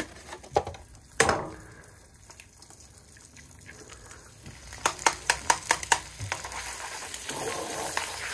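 Eggs frying in a hot frying pan on a gas stove. There are a couple of knocks near the start as an egg is taken from a foam carton, then a quick run of sharp taps about five seconds in as an egg is cracked over the pan. After that the sizzling grows louder as the new egg hits the hot pan.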